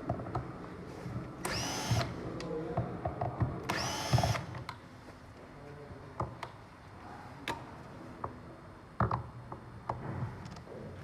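Electric screwdriver running in two short bursts about two seconds apart, its whine rising as it spins up and then holding, as screws are backed out to take the board apart. Clicks and knocks of parts being handled come in between.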